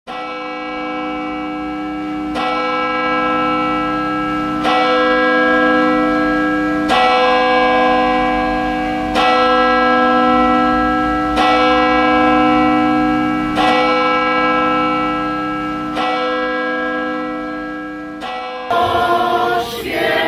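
A single church bell tolling slowly and evenly, eight strokes about two and a quarter seconds apart, each ringing on into the next. Near the end the tolling gives way to a choir singing.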